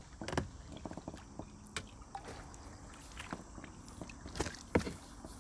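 Irregular light knocks and clicks, a few of them sharper, from fishing tackle being handled while a hooked crucian carp is landed.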